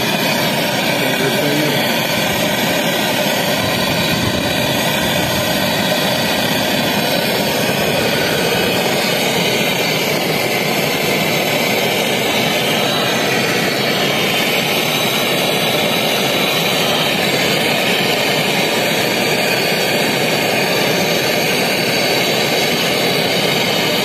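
Handheld brazing torch flame burning with a steady rushing hiss as a copper joint at a refrigerant filter drier is brazed.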